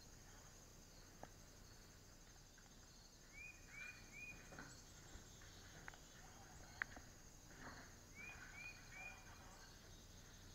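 Near silence: a faint steady high trill, with two runs of three quick rising chirps and a few soft footfalls and sharp clicks.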